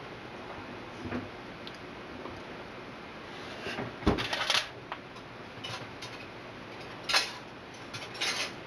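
A few short clatters and knocks of things being handled, like kitchenware, loudest about four seconds in, with another near seven seconds and a couple more near the end, over a faint steady background hum.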